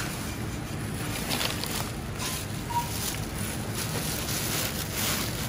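Plastic grocery bags rustling as they are handled, over a steady store background hum, with two short beeps a little past two seconds in.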